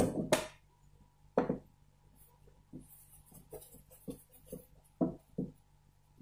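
Screwdriver and hands working screws out of a flat-screen TV's plastic back cover: scattered knocks and clicks on the plastic, the loudest near the start and about a second and a half in, with lighter taps later.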